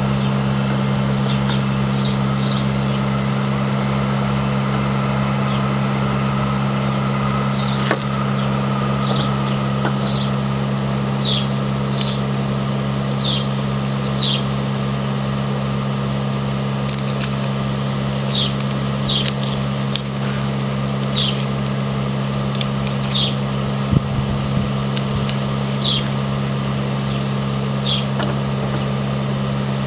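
Steady low hum of a running motor or engine, with short high chirps repeating every second or so and a few light clicks over it.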